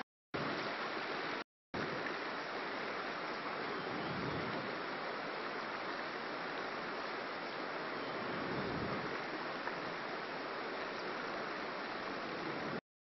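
Steady rush of flowing river water, broken by brief silent gaps twice near the start and once just before the end.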